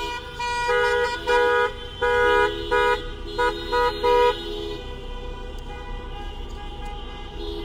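Car horns honking in protest: a run of long and short blasts over the first four seconds or so, then the steady sound of cars driving past, with another horn starting near the end.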